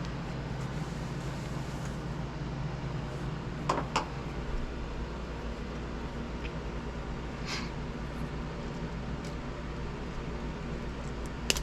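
A steady low hum from the workspace, with a few short metallic clicks and clinks from hand tools working on the frame bolts: two close together about four seconds in, a faint one later and another near the end.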